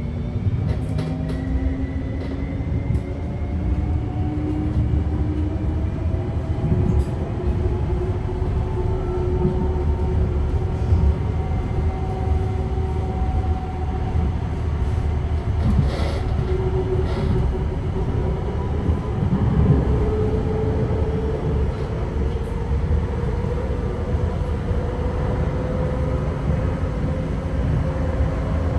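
Inside a TriMet MAX light rail car (Siemens S70) running between stations: a steady low rumble of wheels on track under the whine of the electric traction motors. The whine rises in pitch as the train gathers speed, once near the start and again over the second half, with an occasional click from the rails.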